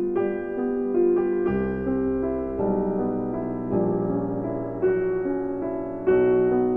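Piano music: slow notes and chords, each struck and left to ring out.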